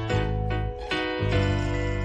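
Background music: a light keyboard tune with notes struck in a steady rhythm.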